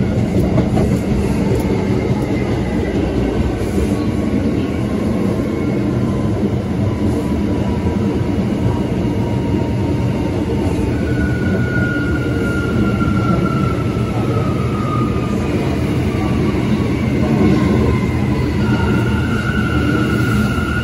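Bombardier R179 subway car running on MITRAC AC traction: the motors and inverters whine over a steady rumble of wheels on rail. Several whining tones glide slowly down in pitch, one after another, and near the end a new steady whine sets in.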